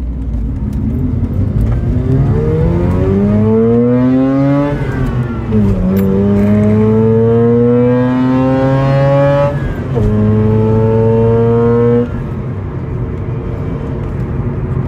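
Mazda RX-8's two-rotor Renesis rotary engine accelerating hard through the gears. The revs climb and drop back at two upshifts, about five and ten seconds in, and the engine eases off to a steadier, lower drone near the end. This is a high-rpm test pull with the oil level brought down to the full mark.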